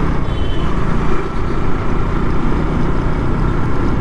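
KTM Duke 200's single-cylinder engine running steadily while riding, amid surrounding traffic noise.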